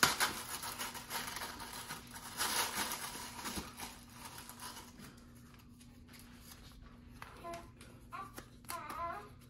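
Tissue paper torn as a fist punches through a punchboard cup cover, loudest at the start and again about two and a half seconds in, followed by quieter paper rustling and crinkling as a folded slip is pulled out and unfolded.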